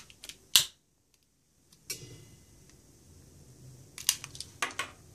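Scattered sharp clicks and light knocks from handling a pillar candle in a perforated stainless steel cutlery holder and lighting it. The loudest click comes about half a second in, and a cluster of clicks comes around four seconds in.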